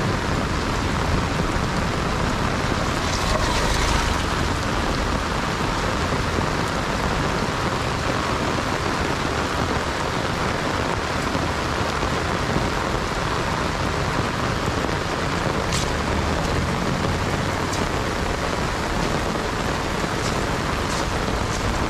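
Steady rain falling, a constant hiss with a few sharper ticks of drops here and there.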